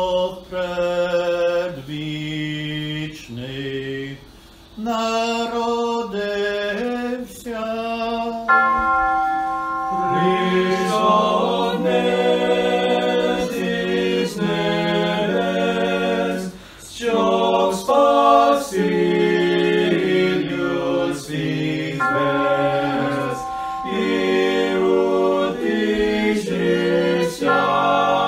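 An unaccompanied Ukrainian Christmas hymn in the Byzantine-rite style. A single male voice intones the opening line, and after about eight seconds a small mixed choir joins in, singing in harmony.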